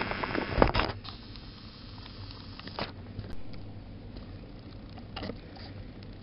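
Handling noise: scraping and rustling close to the microphone during the first second, then a faint low hum with a few soft clicks.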